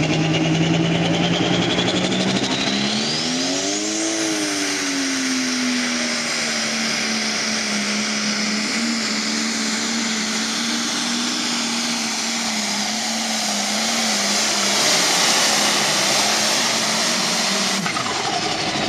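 Turbocharged diesel engine of an International 966 Pro Stock pulling tractor at full power during a pull. Its revs climb hard a few seconds in, with a high whine rising steeply, then hold high and steady down the track. The sound breaks off abruptly near the end.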